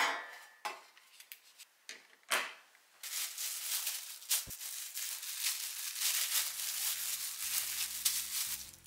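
A stainless steel tray set down on a counter with a knock and a brief metallic ring, followed by a few lighter knocks; then thin disposable plastic gloves crinkling steadily as they are pulled onto the hands.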